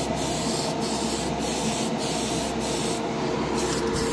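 Tamiya Fine Surface Primer aerosol can spraying in a steady hiss as light coats go onto a model car body, with a short break about three seconds in.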